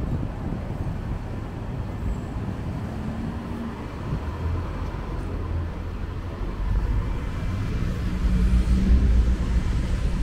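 City street traffic: car engines running with a low rumble, getting louder about seven seconds in.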